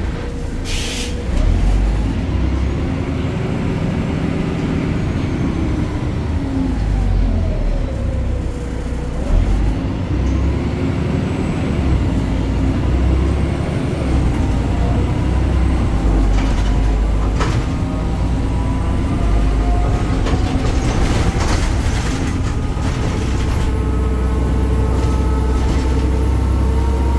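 BredaMenarini Avancity Plus city bus running, its Deutz diesel engine and ZF transmission giving a low rumble with a whine that falls and rises in pitch as the bus slows and picks up speed, climbing steadily near the end. A few sharp clicks and knocks sound over it.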